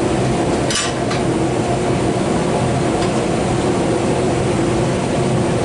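Steady loud drone of running shop machinery with a low hum, and one sharp metallic click about a second in as the twisting wrench works the hot steel bar in the vise.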